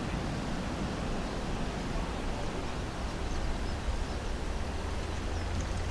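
Steady, distant low rumble of the Kawasaki P-1's four turbofan engines as the patrol aircraft climbs away after takeoff.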